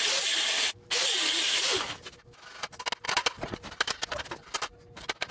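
A cutting tool runs in two loud hissing bursts, with a short break about 0.7 s in, cutting through a seized steering tie rod end. After about two seconds it gives way to scattered light metallic clicks and taps.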